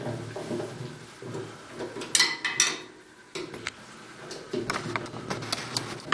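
Handling noise from working on a heat press casing with a screwdriver: small clicks and knocks of tool and metal parts, with two brief louder scrapes a little after two seconds in.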